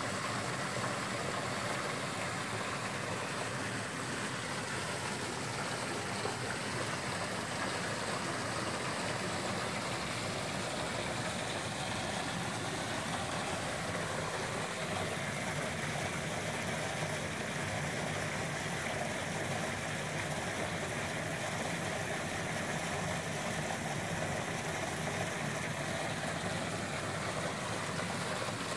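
Water pouring steadily from a curved metal spout water feature into a swimming pool, an even, unbroken splashing.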